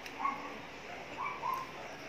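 A dog whining: two short, high whines, one just after the start and one about a second and a half in.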